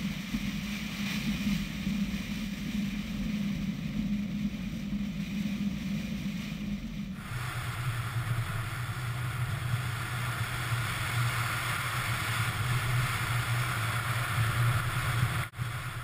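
Subaru car driving, with a steady engine drone and wind and road noise on a hood-mounted microphone. About seven seconds in, the sound changes abruptly to a lower drone with more hiss as the car is on pavement instead of gravel.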